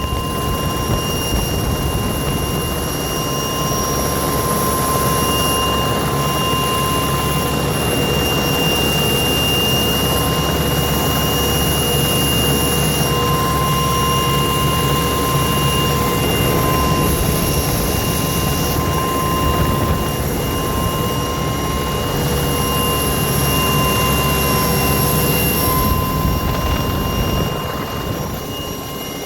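Steady whine of an aircraft's motors and propellers in flight, several constant high tones over a rushing noise, dipping slightly near the end.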